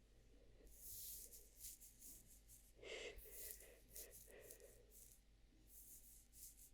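Faint, irregular soft rustling close to the microphone, with a breathy sound about three seconds in.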